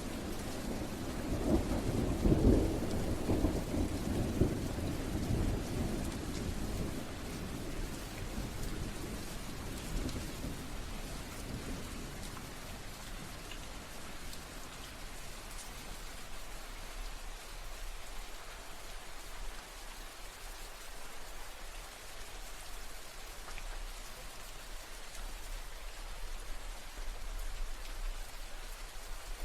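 Steady rain falling, with a roll of thunder that rumbles up about two seconds in and fades away over the next ten seconds, leaving the rain alone.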